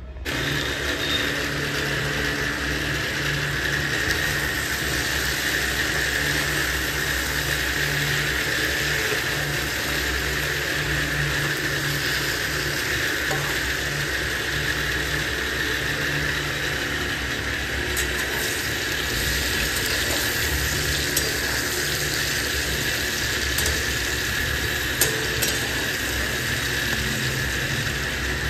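Steady sizzling of food frying in a pan, with a low hum underneath and a few sharp clicks of a metal spatula against the pan in the second half.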